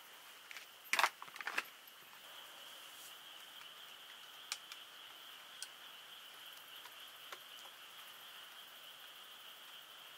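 Night insects trilling steadily in one high, even pitch, with a few sharp clicks and clatters of gear being handled, the loudest about a second in. The sound cuts off suddenly at the very end.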